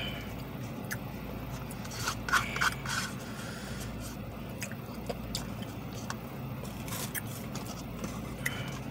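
Spoon scraping and clicking against a small cheesecake cup in short scattered bursts, busiest a couple of seconds in and again near the end, over a steady low hum inside the car.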